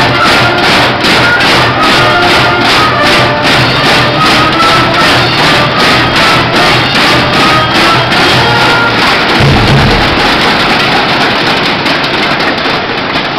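A cheering section's brass band plays a fight song, with trumpets carrying the melody over a steady beat of drums and fans' rhythmic clapping, about three to four beats a second. The horns stop about nine seconds in, a heavy bass-drum hit follows, and the beat fades near the end.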